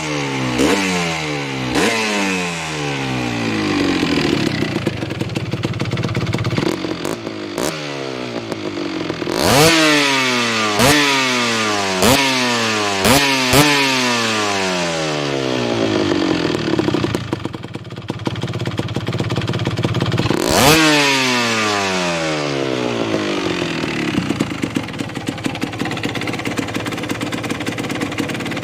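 Kawasaki KMX 125 two-stroke single-cylinder engine, breathing through a Gianelli end silencer that has been freshly repacked and has had its welded-in restrictor removed. The throttle is blipped sharply again and again, and after each rev the pitch falls away toward idle; one bigger rev comes about two-thirds of the way in.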